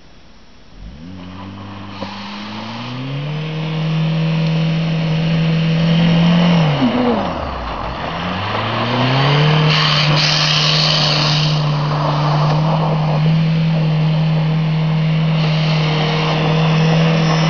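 The 1990 Volkswagen Jetta's 1.6 diesel engine is revved up and held at high revs as the car drifts on snow. The revs drop and climb again about seven to nine seconds in, then hold steady to the end. A rushing hiss comes in for a couple of seconds about ten seconds in.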